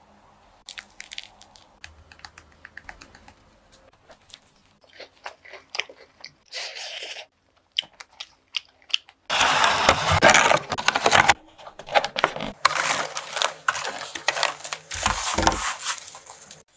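Biting into and chewing a crisp, crumbly-topped choux cream puff filled with whipped cream and strawberries: loud crunching in two long stretches in the second half. Before it, only faint light clicks and rustles of the pastry being handled.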